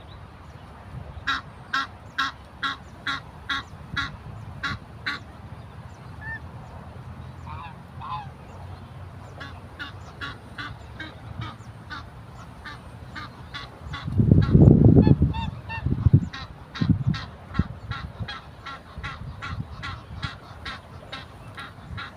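African geese honking in a steady repeated series, about two honks a second, with a lull in the middle before the honking picks up again. Around two-thirds of the way through, a loud low rumble is the loudest sound, followed by a few smaller thumps.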